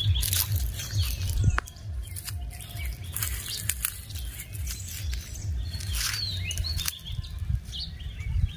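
Small birds giving short scattered chirps, over a low rumble on the microphone and brief crackles of dry leaves and twigs underfoot.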